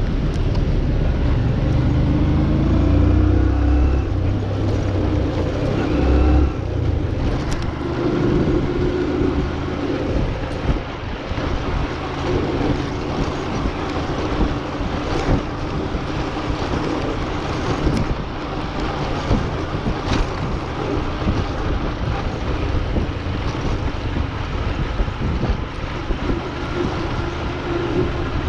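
Engine and road noise from a moving vehicle in street traffic, with wind on the microphone; the engine note rises and falls a little.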